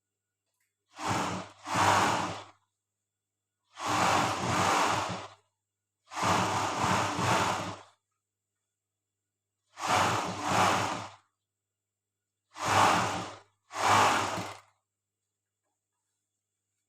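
Overlock sewing machine (serger) stitching in short runs: its motor hums and the stitching chatters for a second or two at a time, about seven times, stopping between runs.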